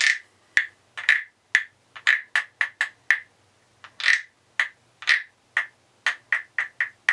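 Thai wooden percussion frogs (frog guiros) rasped with a stick along their ridged backs, making a string of croaks. There are about twenty strokes at an uneven pace, mostly short and quick, with a few longer drawn-out croaks.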